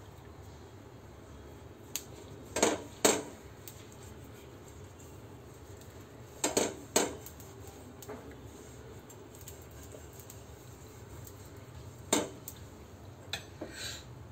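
Short clinks and knocks of metal kitchenware, several in close pairs a few seconds apart, while oil is brushed over an iron tawa with a silicone brush, over a low steady hum.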